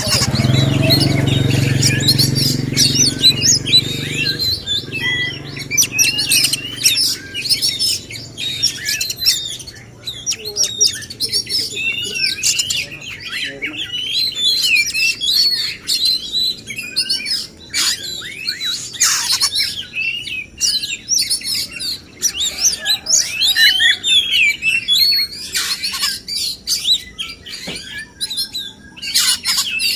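Male oriental magpie-robin singing nonstop: a rich run of loud, varied whistles, slurred notes and quick trills. A low hum underneath fades out over the first several seconds.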